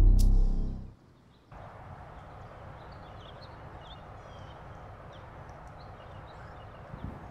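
A deep, loud musical hit that fades out about a second in, followed by steady outdoor background noise with small birds chirping.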